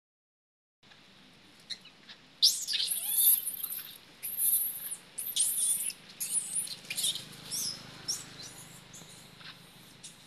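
Young macaques squealing: a string of short, high-pitched cries, loudest starting about two and a half seconds in and repeating on and off after that.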